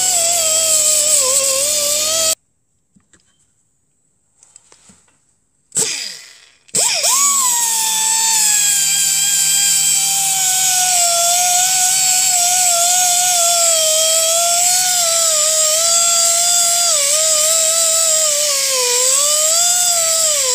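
Silverline 50 mm mini pneumatic orbital sander running with a high whine as its 80-grit pad is worked on a rusty steel tube. It stops about two seconds in and gives a short blip near six seconds. It starts again about a second later, its pitch rising as it spins up, then wavering as it is pressed along the metal.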